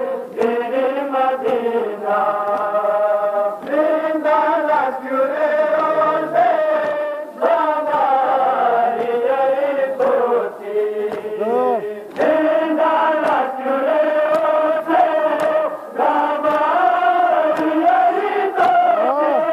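Crowd of men chanting a Shia mourning lament (noha) together, in sung phrases of a few seconds with short breaks between them.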